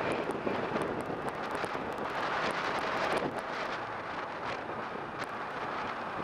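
Steady wind rush on the microphone of a moving Kawasaki Ninja 650 motorcycle, with the bike's running engine and road noise mixed in underneath.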